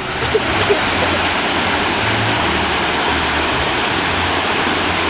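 Steady rush of falling, splashing water that starts abruptly and holds even.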